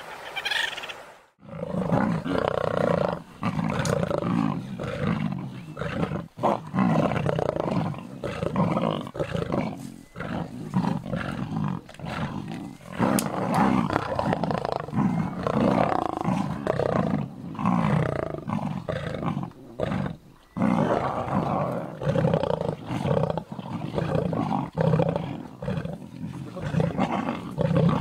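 Lions snarling and growling at close range: a near-continuous run of harsh snarls, broken only by a few short pauses.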